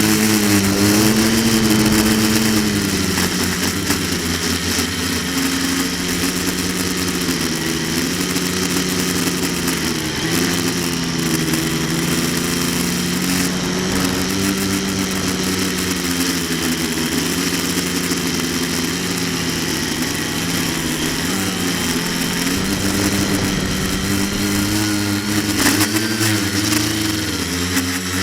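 Quadcopter's electric motors and propellers buzzing continuously, heard from a camera on board, the pitch rising and falling with the throttle.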